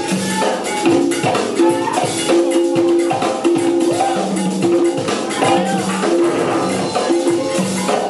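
Loud music with a steady beat and a short repeating riff of held notes.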